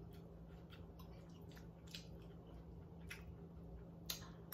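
Faint chewing and mouth sounds of someone eating ramen noodles with seafood, with scattered soft clicks; the sharpest click comes about four seconds in, as a forkful of noodles reaches the mouth.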